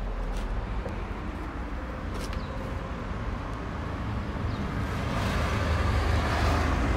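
Road traffic running steadily, a low rumble that grows louder over the last couple of seconds.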